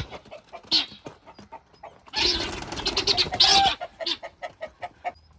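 Guinea fowl giving its loud alarm cackle while being chased and grabbed at, with a run of rapid short calls, about six a second, in the second half.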